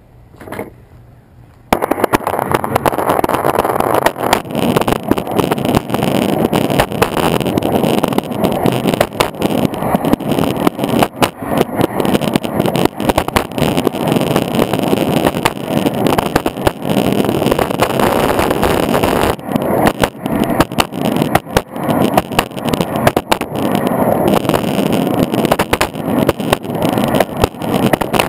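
Longboard wheels rolling fast over concrete pavement: a loud, continuous rumble with frequent clicks as the wheels cross cracks and seams, cutting in suddenly about two seconds in.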